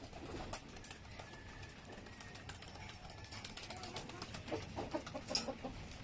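Domestic pigeons pecking grain from a feeding trough, a run of quick sharp taps, with a few low pigeon coos about four and a half to five and a half seconds in.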